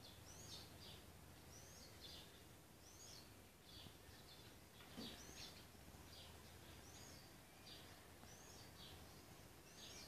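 A bird singing faintly, repeating the same short high phrase about once a second, over steady low background noise. A soft knock about halfway through.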